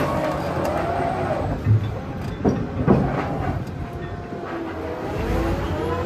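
Heavy diesel construction machinery running, its engine pitch sliding up and down, with three loud knocks near the middle.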